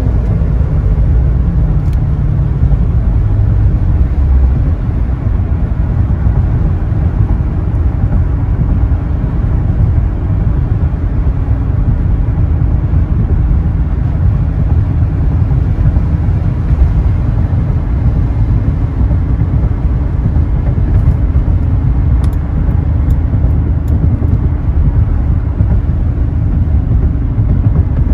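Inside the cabin of a 2008 Chevrolet Corvette cruising at about 60 mph: the V8 drones steadily at low revs, mixed with tyre and road noise.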